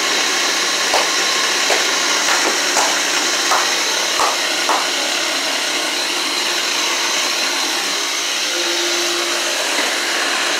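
Steady loud whirring noise from a running motor, with a low hum under it. Several light knocks come in the first five seconds.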